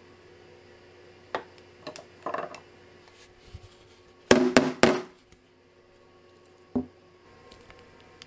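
Metal madeleine baking pan knocking against a wooden counter: a few light taps, then three loud knocks in quick succession about halfway through, and a single knock near the end.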